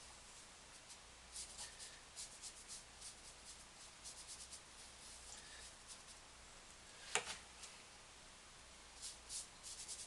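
Faint brushing of an ink-loaded brush dragged across painting paper, a string of short strokes one after another, with one sharper tap a little over two-thirds of the way through.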